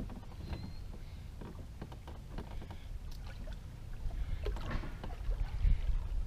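Canoe being paddled and pushed through shallow, snag-filled river water: scattered knocks and scrapes of paddle and gear against the hull over a low rumble picked up through the canoe-mounted camera, getting louder near the end.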